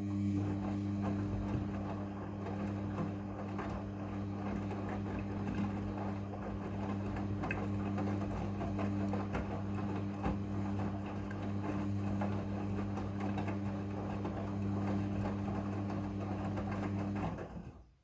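Midea front-loading washing machine running: a steady electric motor hum with a busy rattle and swish over it. It starts abruptly and stops about a second before the end.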